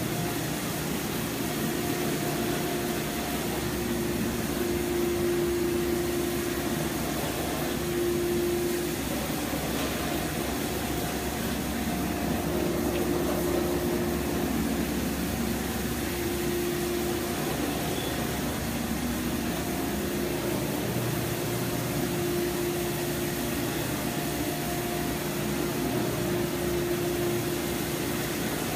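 Rotary carpet extraction machine working over carpet, with a steady suction roar through its vacuum hose and a motor hum that swells and fades every few seconds.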